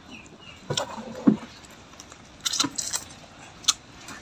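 A few scattered light clinks and knocks of chopsticks and spoons against stainless-steel plates and bowls during a meal, with a brief clatter about two and a half seconds in.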